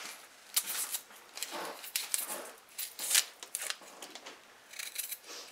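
Kitchen knife scraping and cutting the thick skin off a cassava root in short, uneven strokes, the skin peeling away from the flesh.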